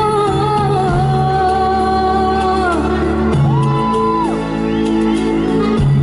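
Live amplified pop song: a woman singing long held, wavering notes into a microphone over a band with steady bass notes and guitar, heard through the PA.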